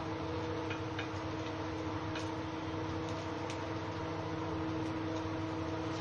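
Soyabean nuggets deep-frying in mustard oil in a kadhai: a steady sizzle with a few faint small ticks, over a steady background hum.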